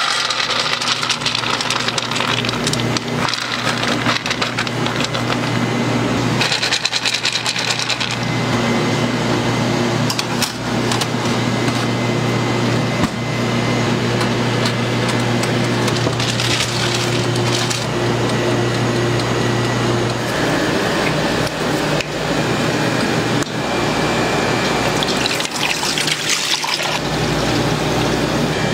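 Kitchen working sounds over a steady low machine hum: nuts clattering onto a metal tray, knocks and clicks of handling, and liquid being poured.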